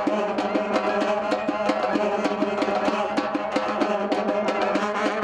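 Background music with a fast, even percussion beat over steady held tones.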